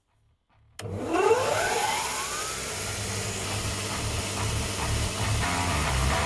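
Large belt grinder's electric motor switched on: a click, then a whine rising in pitch for about two seconds as it spins up to speed, then running steadily with a rushing hiss from the belt.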